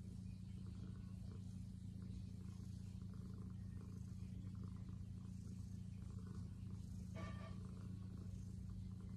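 Tabby cat purring steadily, a low continuous rumble, while it is stroked on a lap.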